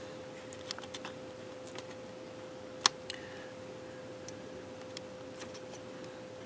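Small, scattered clicks and taps of steel picks against a ribbon-cable connector and the MacBook Pro logic board as it is pressed toward its socket, with one sharper click about three seconds in. A steady hum runs underneath.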